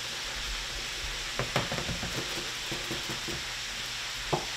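Dry pancake and waffle mix being shaken out of a cardboard box into a plastic mixing bowl. The box rattles and taps in a run of light clicks for about two seconds, with one sharp click near the end. Under it runs a steady hiss of oil frying.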